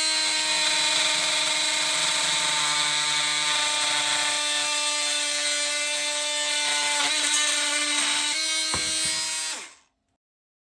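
BAUER 20V brushless cordless oscillating multi-tool running steadily at its speed-5 setting, a high whine over a buzzing hiss, switched off suddenly near the end.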